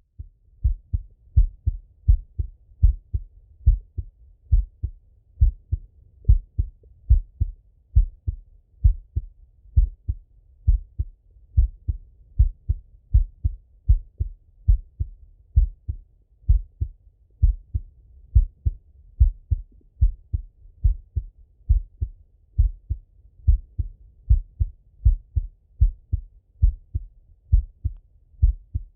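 A man's resting heartbeat heard through a Littmann stethoscope: a steady, even lub-dub, a little more than one beat a second, low and muffled.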